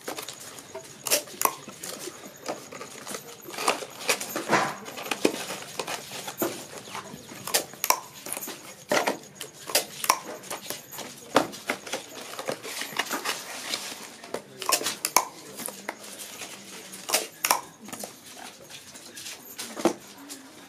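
Cardboard firecracker boxes being folded, pressed and handled by hand: irregular sharp taps, knocks and rustles.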